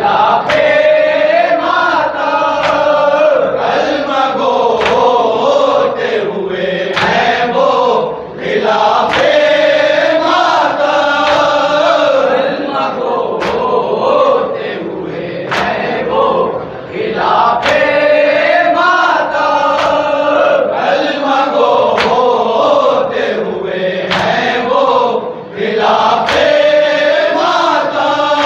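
A group of men chanting a Shia mourning salam together in a melody, line after line, with short breaks between verses and scattered sharp slaps.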